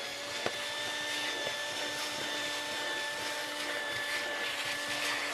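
Wet/dry shop vacuum running steadily, its hose nozzle drawing air along a boat deck: a constant rushing hiss with a steady motor whine.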